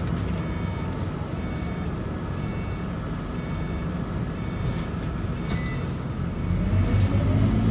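Scania K94UB bus's 9-litre six-cylinder diesel idling with a steady low rumble, heard from inside the cabin, with a faint regular ticking about every two-thirds of a second. Near the end the engine note starts to rise as the bus pulls away.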